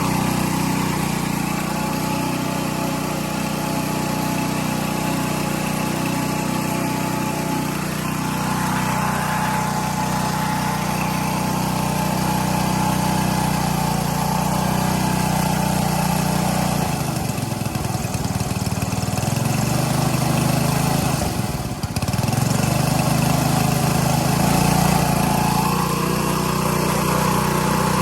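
Gas-engine pressure washer (2.5 gallons per minute) running steadily under load while spraying at high pressure, a constant engine hum with a wide hiss of spray above it. About two-thirds of the way through the engine note wavers and breaks up for a few seconds, then settles back to its steady run.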